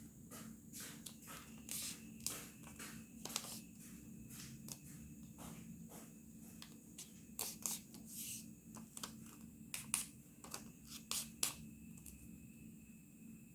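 A sheet of origami paper being folded and creased by hand: irregular crisp rustles and light taps, the loudest a few sharp crackles near the end, over a low steady hum.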